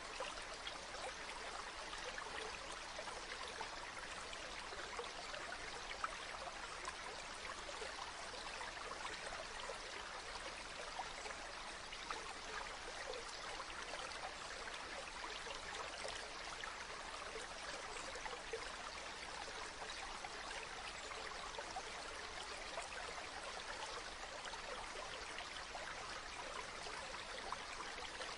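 A stream of water running steadily, with a few brief splashes or drips along the way.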